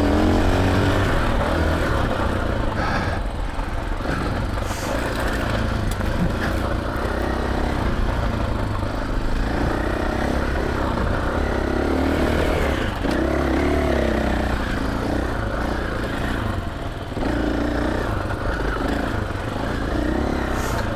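KTM 500 EXC-F single-cylinder four-stroke dirt bike engine being ridden along a trail, its revs rising and falling with the throttle, with a steady low rumble and a few short knocks.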